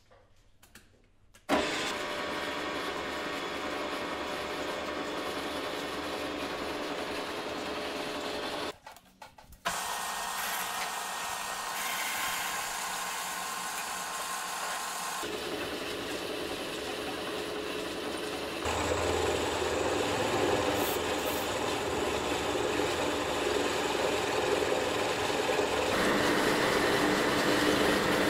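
Profitmil turret milling machine running, its spindle turning a cutter into a crankshaft web to mill a hole. It starts about a second and a half in, stops briefly around nine seconds, and runs louder from about nineteen seconds on.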